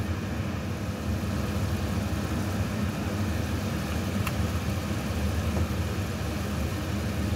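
Steady low rumble from the stovetop as a pan of tomato sauce simmers, with one faint click about four seconds in.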